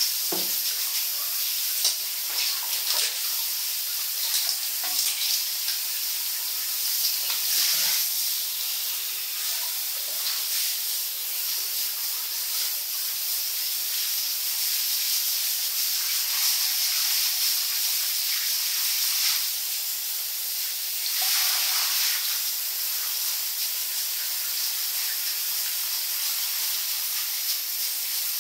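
Handheld shower head spraying water onto a crocodilian's scaly back and the tiled floor: a steady hiss of spray, swelling twice in the second half as the stream moves.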